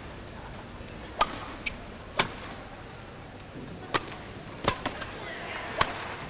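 Badminton rackets striking a shuttlecock during a rally: a series of sharp hits at uneven spacing over the steady hum of the hall.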